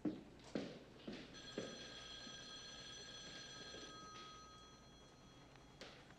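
A few sharp knocks, then a bell-like ring of several high tones that holds for about two and a half seconds and fades away. A single click follows near the end.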